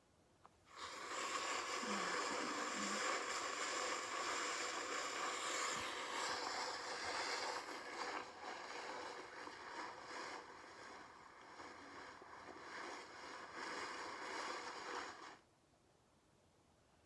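Footsteps crunching and crumpling through dry fallen leaves, a steady rustling crunch that starts about a second in and stops abruptly near the end.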